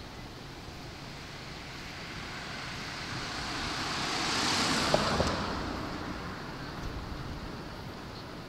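A vehicle passing by: a rushing noise swells to its loudest about halfway through, with two light knocks a fraction of a second apart at the peak, then fades away.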